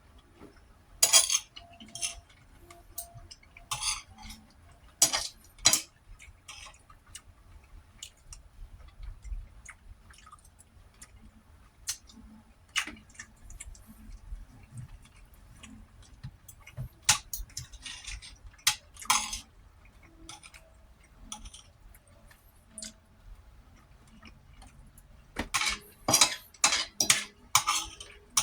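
Eating from a plate: scattered sharp clicks and clinks of cutlery and dishes, irregular through most of the stretch, with a quick run of louder clicks near the end.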